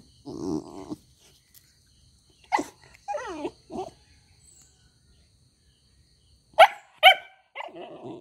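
A young dog, a Rottweiler–Labrador cross puppy, gives a string of short barks and yelps: a few scattered calls, some falling in pitch around three seconds in, and two loudest sharp barks in quick succession about seven seconds in.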